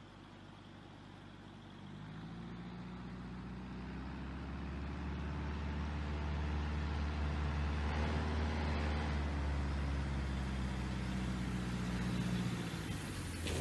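Single-engine light bush plane's piston engine and propeller droning as it approaches low to land, getting steadily louder from about two seconds in.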